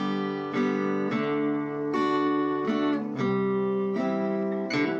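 Acoustic guitar strumming chords, about six strokes spaced half a second to a second and a half apart, each chord left ringing.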